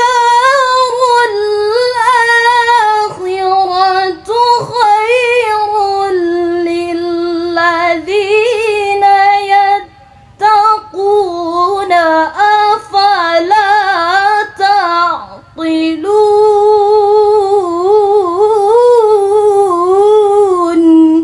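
A young woman reciting the Quran in the melodic tilawah style, drawing out long ornamented notes with wavering pitch. She pauses briefly about ten seconds in and again about fifteen seconds in, and the phrase ends on a long held lower note.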